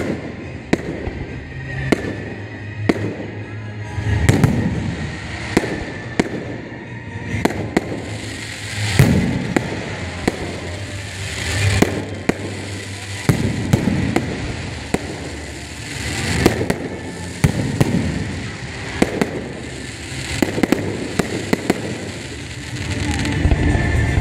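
Aerial fireworks shells launching and bursting in a rapid string of sharp bangs and cracks, with heavier volleys swelling up every few seconds.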